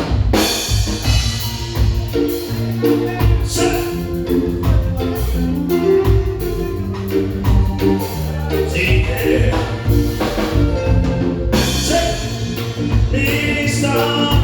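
A live band playing an upbeat number: a drum kit keeping a steady beat under a stepping bass line and keyboard chords.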